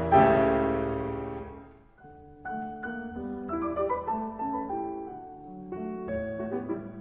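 Background piano music: a loud chord rings out and fades over about two seconds, then a quieter passage of separate notes begins.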